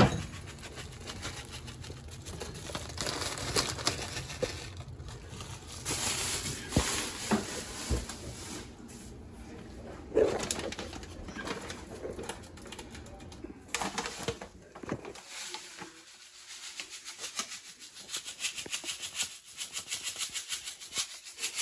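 Food-preparation handling noise: a plastic bag rustling, then from about two-thirds of the way in a fast patter as turbinado raw cane sugar is shaken from its paper bag into a bowl.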